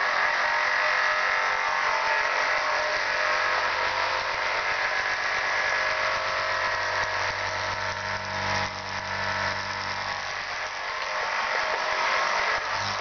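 Vintage Vertibird battery-operated toy helicopter running: the small electric motor and gears in its control base whir steadily as they drive the rotor through the tethered arm. A deeper hum joins through the middle.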